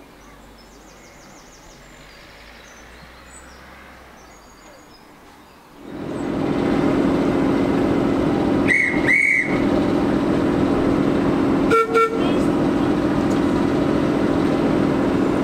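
Faint outdoor ambience with a few bird chirps, then about six seconds in a Class 08 diesel shunter's engine starts to be heard running steadily and loudly. Over it come two short, high whistle blasts and, a few seconds later, a short horn toot: departure signals as the train gets ready to leave.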